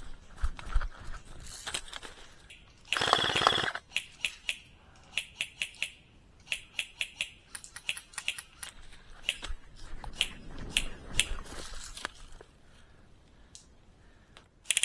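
Airsoft guns firing: scattered sharp single clicks, with a short rapid burst about three seconds in.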